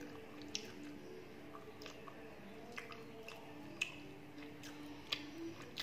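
Close-up chewing of rice and chicken curry eaten by hand, with sharp wet mouth smacks about once a second and soft squishing of fingers working the rice on a steel plate.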